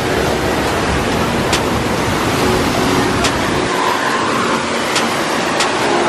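Waterfall rushing in a steady, loud roar of falling water, heard close to the drop. The deepest part of the rumble falls away about two-thirds of the way through.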